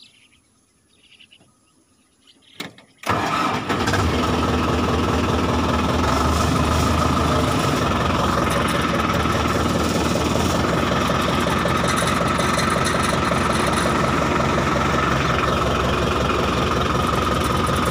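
Near quiet for about three seconds with a faint click, then the farm tractor's engine comes in suddenly and runs steadily under load, the tractor pulling a plough through the soil in low range.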